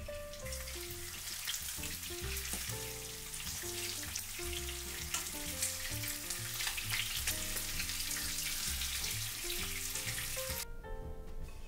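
Yellowtail frying in hot oil: a dense, steady sizzle with many small crackles, which cuts off suddenly near the end.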